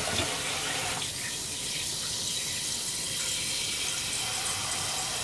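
Kitchen tap running, filling a stainless steel saucepan with water to boil chicken breast: a steady rush of water.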